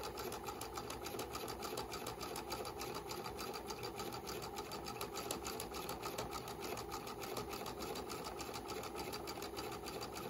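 Sewing machine running steadily, stitching a straight seam down two layers of fabric with a fast, even clatter of needle strokes that holds a constant speed.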